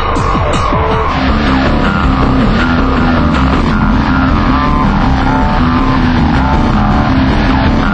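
Loud, dense electronic-sounding music with a stepping bass line and held notes; a pulsing beat heard just before fades in the first second.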